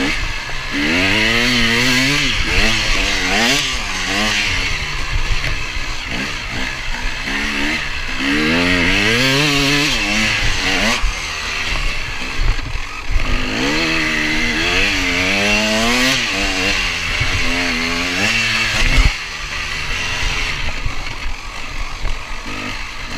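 KTM 250 EXC two-stroke dirt-bike engine, heard close up from an onboard camera, revving up and dropping back again and again as the rider works the throttle through the gears.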